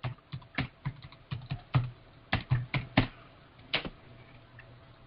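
Typing on a computer keyboard: a quick, irregular run of keystrokes that stops about four seconds in.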